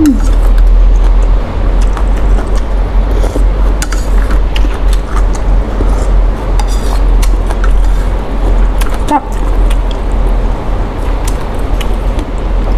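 Eating sounds from a bowl of noodle soup: scattered spoon-and-bowl clinks and mouth clicks over a steady low rumble.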